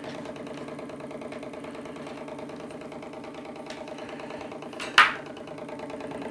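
Stirling engine generator running steadily at speed with no electrical load, a fast, even mechanical beat from its pistons and flywheel. A brief sharp knock about five seconds in.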